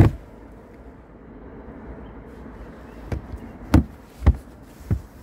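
Sharp clicks and knocks from a hand working the pull tab on the carpeted side-panel cover of a Porsche Cayenne's cargo area: one loud knock at the start, then four more about three to five seconds in.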